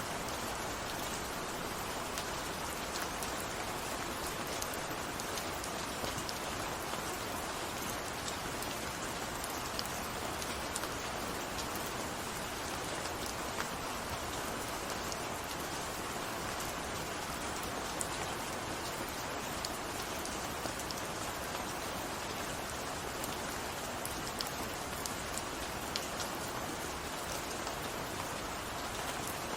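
Steady rain, an even hiss with many small drops ticking on a surface.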